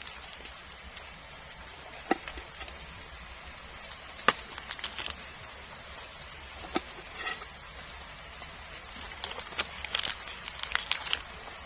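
Scattered sharp knocks and clicks, a few seconds apart, then a quicker run of them near the end, over a steady faint hiss.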